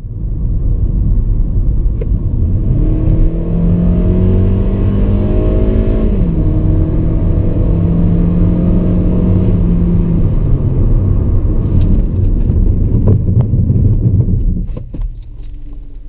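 Hyundai i30's 1.8-litre four-cylinder engine heard from inside the cabin under hard acceleration. The revs climb, dip at an automatic upshift about six seconds in, then climb again. After about ten seconds the engine note falls away as the car slows, with a few sharp clicks, and it settles to a steady idle near the end.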